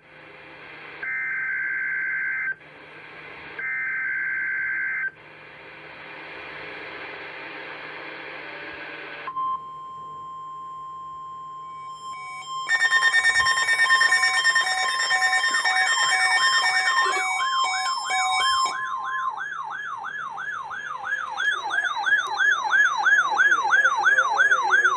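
Emergency alert test tones from NOAA Weather Radio. First come two short bursts of two-pitch digital header tones amid radio hiss, then a steady single tone of about 1 kHz for about three seconds. About twelve seconds in, a loud blare of several steady tones joins it. From about fifteen seconds a siren-like alarm tone takes over, sweeping up and down about three times a second: the weather radio's warning alarm device under test.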